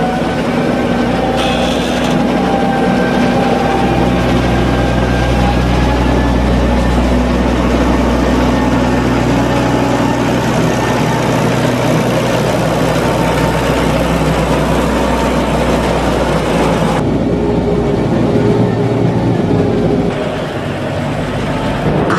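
Fendt 712 Vario tractor engine running steadily as the tractor drives a rear-mounted maize leveller through a heap of milled corn cob mix. The upper hiss drops away abruptly about three-quarters of the way through.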